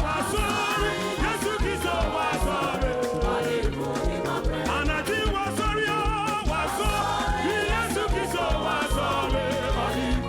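Upbeat Ghanaian gospel praise music with a steady drum beat and wavering melodic lines over it.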